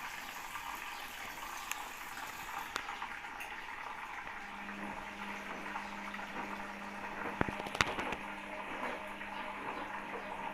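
Water rushing steadily into a Hisense washing machine as it fills, the inlet flowing at good pressure now that its filters and dispenser have been cleaned. About four seconds in a steady low hum joins, and a few sharp knocks come a little later.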